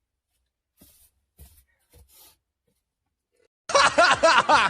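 A few faint, brief sounds, then a burst of laughter that starts suddenly about three and a half seconds in.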